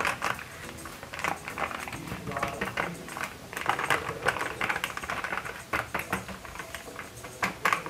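Plastic henna-powder packet crinkling and crackling in the hands as it is squeezed and shaken empty, a dense run of irregular small crackles.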